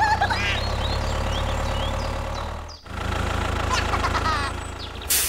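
Tractor diesel engine running at idle with a steady low throb, dropping out briefly about three seconds in. A few high squeaky gliding chirps come near the start.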